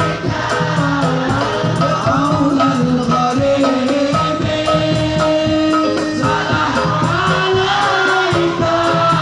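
Live sholawat, Islamic devotional song, played loud by a singer and group over a steady percussion beat.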